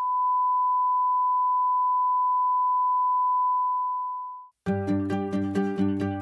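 Steady line-up test tone, a single pure beep played with the colour bars, fading out about four seconds in. After a short gap, instrumental music with plucked strings begins near the end.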